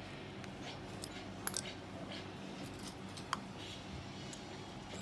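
A few sharp, small metal clicks of a screwdriver and coil jig against the Valkyrie Mini RTA's postless build deck as a coil is secured and the tools are taken away. A steady low hum runs underneath.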